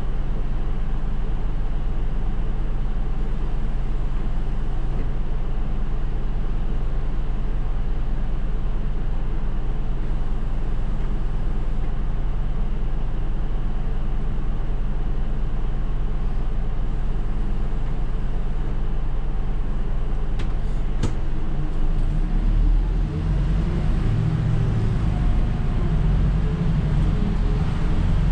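Isuzu Erga city bus's diesel engine idling steadily while stopped, heard from the driver's seat. There is a sharp click about 21 seconds in, then the engine works harder with a shifting pitch as the bus pulls away.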